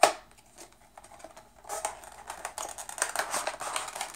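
Cardboard and plastic packaging of a makeup brush set being handled as it is opened. A sharp snap comes right at the start, then about two seconds of crackly rustling and scraping.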